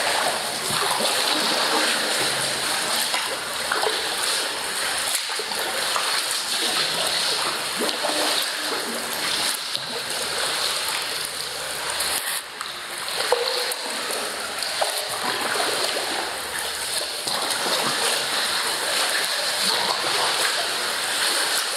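Kayak paddle strokes in the water: continuous splashing and dripping as the blades dip and lift, stroke after stroke.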